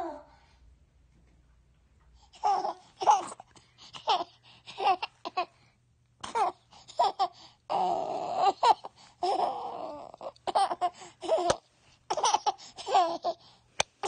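A baby laughing in short, repeated bursts, starting about two and a half seconds in.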